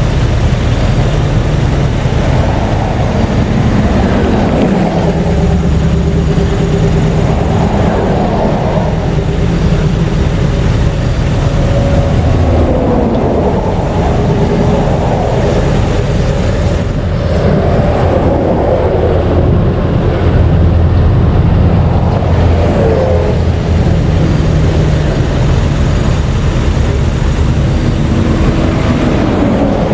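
Interstate traffic passing close by: the steady roar of tyres and engines, with one vehicle after another swelling and fading as it goes past.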